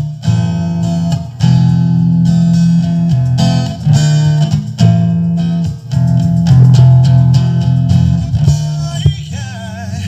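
Guitar music with a heavy, sustained bass line played loud through a sound-check speaker rig of a T&T AK-LSW15 woofer with JH880 and CY300 drivers; a singing voice comes in near the end.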